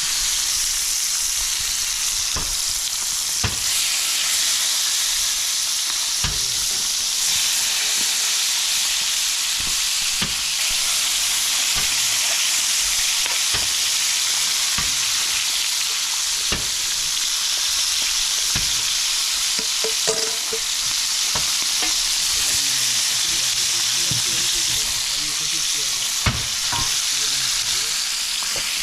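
Quail frying in a pot of hot oil: a steady, loud sizzle with scattered pops and crackles.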